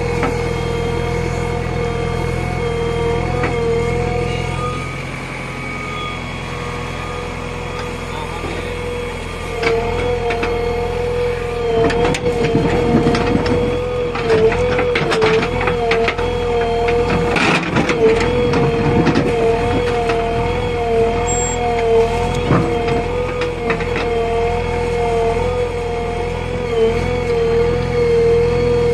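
JCB 3DX backhoe loader's diesel engine and hydraulics running under load with a steady high whine whose pitch dips and wavers as the arm digs. About ten seconds in it grows louder, with knocks and scraping of the bucket in the soil for several seconds.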